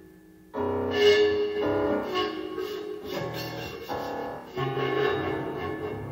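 Piano music: a series of struck chords, one after another, starting about half a second in.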